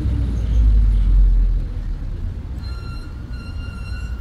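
Street traffic: a low vehicle rumble that swells about half a second in and fades after a second or so, followed from about two and a half seconds in by a thin, steady high-pitched tone over the traffic.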